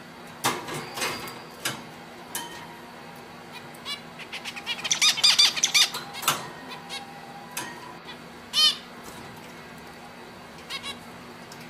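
Caged finches giving short, scattered chirps and calls, with a quick burst of rapid chirping about five seconds in and a single call near nine seconds.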